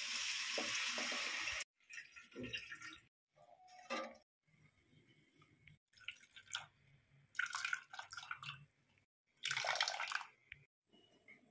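Curry poured into a pot of hot fried seasoning hisses for about the first second and a half. After a break, coconut milk squeezed by hand from grated coconut trickles and splashes through a steel mesh strainer into a steel cup in several short bursts.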